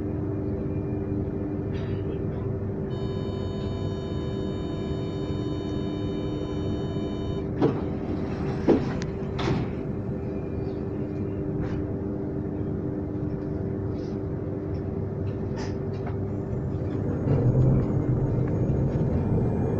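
Transilien Line P train: a steady low rumble with a constant hum. A steady high-pitched tone sounds for about four seconds, followed by two sharp clicks, and the rumble grows louder near the end.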